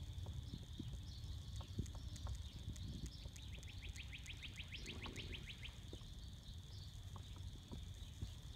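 Faint outdoor background with a steady high-pitched hum and, around the middle, a trill of about six quick chirps a second lasting a couple of seconds, with scattered soft clicks and a low rumble.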